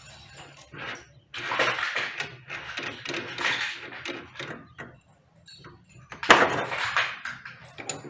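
Metallic rattling and clicking of a drill bit in a bench drill press's chuck as the chuck is turned by hand to seat and grip the bit. It comes in two stretches, the second shorter and louder.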